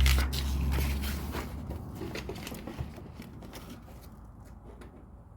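LEGO plastic pieces being handled and pressed together: scattered small clicks and rustles, thinning out toward the end, with a low rumble from handling in the first second or so.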